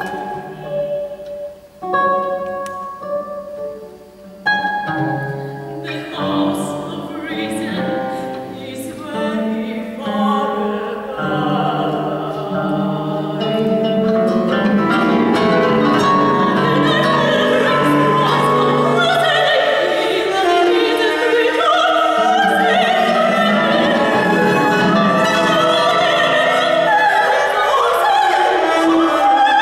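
Contemporary chamber music for four classical guitars, cello and mezzo-soprano. It opens with sparse plucked guitar notes and pauses, then thickens into a louder, continuous texture with sustained string and voice lines from about halfway.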